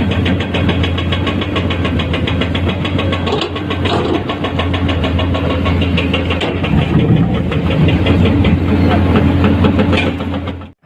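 Diesel engine of a Komatsu PC210-10 hydraulic excavator running steadily while it works, a low even drone with a fast pulsing beat. The sound breaks off suddenly near the end.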